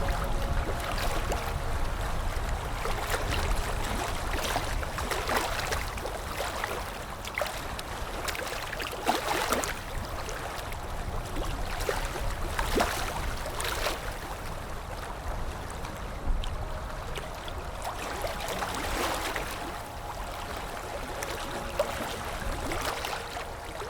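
Sea waves washing onto the shore in a steady hiss, swelling into a louder surge every few seconds as each wave comes in.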